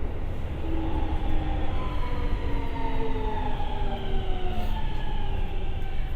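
Siemens GTO-VVVF traction inverter and motors of a Keikyu 1000-series train under way, over the rumble of the running gear: a whine of several tones that falls in steps, the sign of the train slowing under electric braking.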